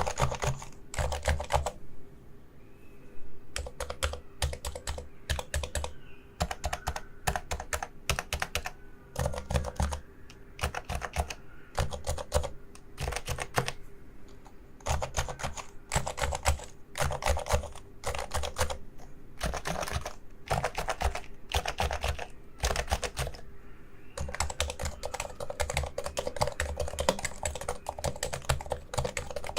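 Typing on a Realforce Topre electrostatic-capacitive keyboard: fast runs of muted key strokes in bursts of a second or two with brief pauses, then a longer unbroken run near the end.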